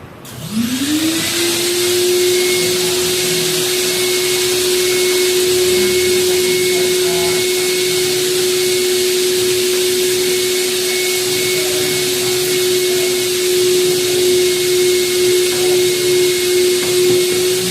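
Vacuum cleaner switched on, its motor spinning up in the first second to a steady whine over a rush of air, sucking out dust from where the cabin filter sits. Near the end the suction note wavers up and down as the nozzle moves.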